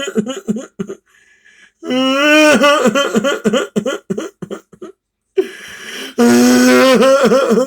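A person crying loudly: long drawn-out wails that break into rapid, choppy sobs, with two short pauses for breath.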